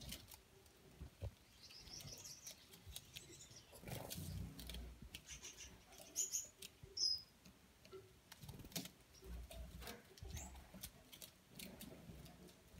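Gouldian finches feeding: a few brief, high chirps, with scattered light clicks of beaks pecking and husking seed on newspaper.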